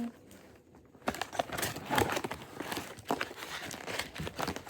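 Plastic packaging wrapper on a toy box crinkling and tearing as it is pulled off by hand, an irregular run of crackles starting about a second in.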